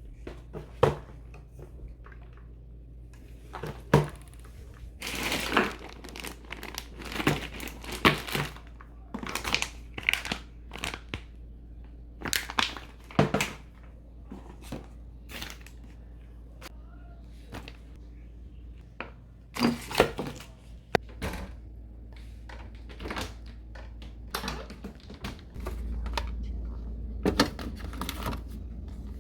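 Plastic packaging and containers being handled: repeated crinkling with short clicks and knocks, over a steady low hum that gets louder near the end.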